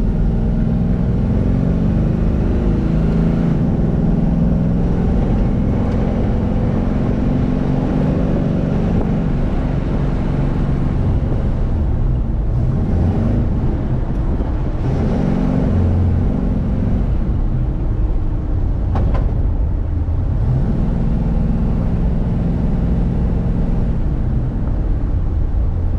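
Chevrolet El Camino under way, its engine running steadily with road noise. The engine note changes and dips around the middle, then settles back to a steady drone.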